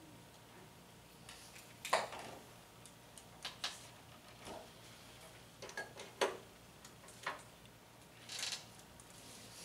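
Scattered small clicks and knocks of handling: a handheld microphone switched off and set down on a small table, and an oboe picked up. The sharpest knock comes about two seconds in, with a quick run of clicks around six seconds in.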